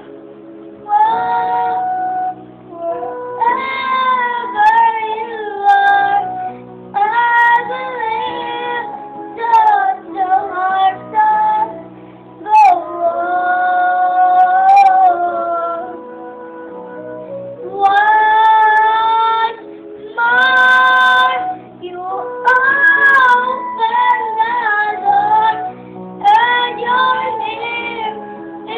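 A young girl singing a song in phrases of a few seconds each, over instrumental accompaniment.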